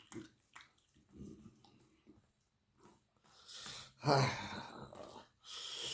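Close-miked eating of spicy chicken wing curry and rice: soft wet chewing and mouth clicks, then from about three and a half seconds in, a loud slurp and hissing breaths drawn in against the chilli heat.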